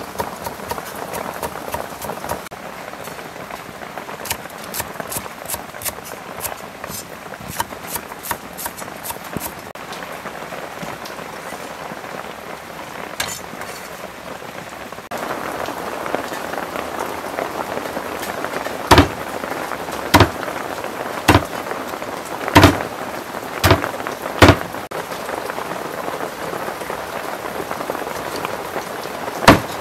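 Heavy rain falls steadily throughout, with a knife on a wooden chopping board: light, quick taps in the first third, then about seven hard cleaver chops through a large catfish from about two-thirds in, the loudest sounds.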